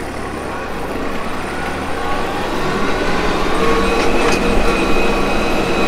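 Iseki TM3265 compact tractor's diesel engine running as the tractor pulls away and picks up speed in high range fourth gear, growing louder over the first second or two, then holding steady.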